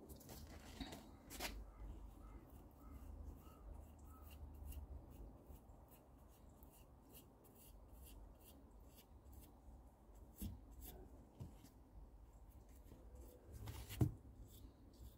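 Faint scraping and small ticks of gloved fingers scooping wet cement paste out of a plastic bowl, with one sharper knock near the end. A faint low rumble runs underneath.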